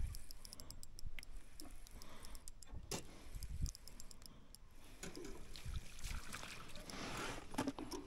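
Fishing reel being wound in as a redfin perch is played to the boat: a scatter of faint ticks and clicks, a few dull knocks around the middle, and a short rush of noise near the end.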